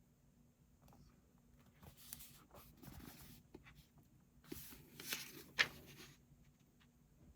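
Paper rustling as a book page is turned: two rustles a couple of seconds apart, the second louder with a sharp crackle near its end.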